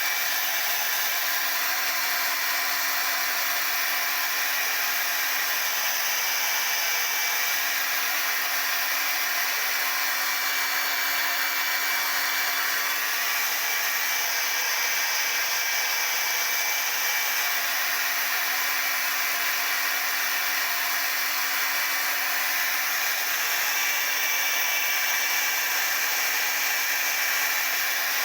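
Hair dryer running steadily without a break, an even airy rush with a thin steady whine, blow-drying the layers of lace-front wig adhesive so they set.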